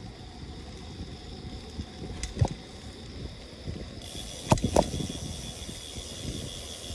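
A Buddy P40 rolling over pavement: steady wheel and road rumble with mechanical rattling. Sharp knocks come about two and a half seconds in and again twice around four and a half to five seconds in, as from jolts over bumps.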